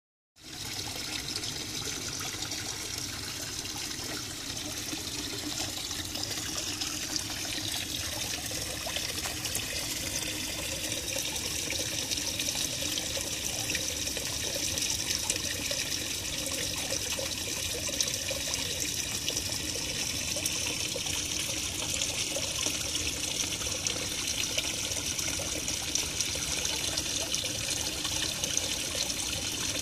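Steady trickle of running water into a garden pond, a continuous splashing hiss with no pauses.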